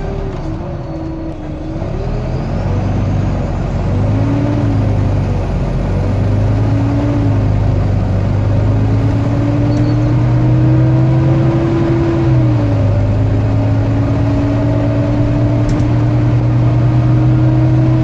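Volvo B9TL double-decker bus's six-cylinder diesel engine and transmission, heard inside the bus while it drives and accelerates: a steady drone whose pitch climbs slowly, then drops back at a gear change about twelve seconds in before climbing again.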